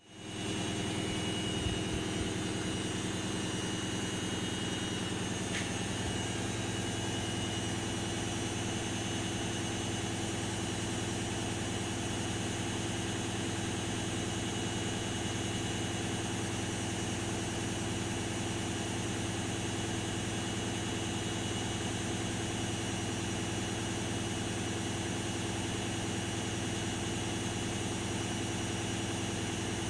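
Candy Activa washing machine spinning its drum at a steady speed: a constant motor hum and drum whir with no change in pitch.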